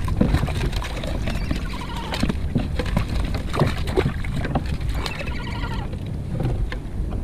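Crab hoop net being shaken out over the side of a kayak: irregular clicks and knocks of the net and Dungeness crabs, with splashes as crabs drop into the water, over a low rumble of wind and sea.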